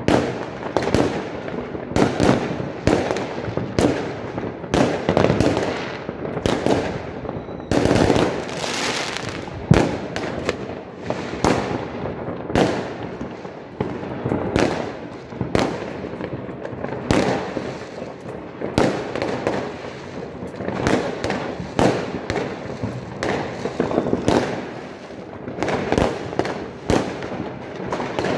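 New Year's Eve fireworks and firecrackers going off all over a city at once: a continuous barrage of overlapping bangs and crackles, several a second, with no let-up. About eight seconds in, a longer rushing hiss rides over the bangs.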